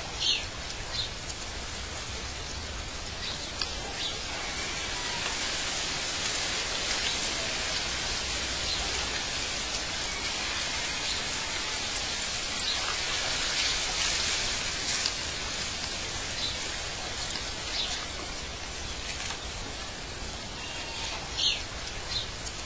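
Outdoor nature ambience: a steady hiss with scattered short high bird chirps.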